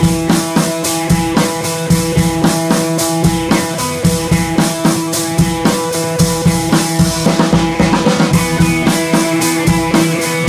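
Background music: a rock-style track with a steady drum-kit beat and sustained guitar or keyboard chords.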